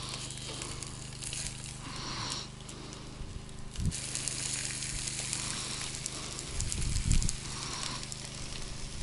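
Fish pieces sizzling on the grill mat of an O-Grill 700 portable gas grill, a steady crackling hiss that grows louder after a sharp knock about four seconds in. A brief low rumble of handling near the end.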